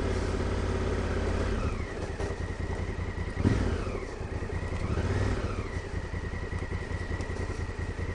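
Honda Africa Twin CRF1000L's 998 cc parallel-twin engine running at low trail speed. It is steady at first, then pulses unevenly at low revs from about a second and a half in, with a single knock about three and a half seconds in.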